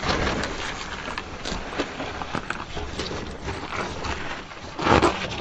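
Tyres of an INEOS Grenadier crunching and grinding over loose shale and gravel on a steep climb, with stones clicking and clattering under the wheels. A louder crunch comes about five seconds in.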